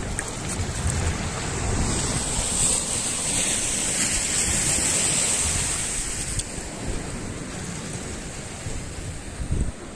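Sea surf washing over a rocky shore, swelling up over a few seconds and then easing off, with wind buffeting the microphone in low bumps.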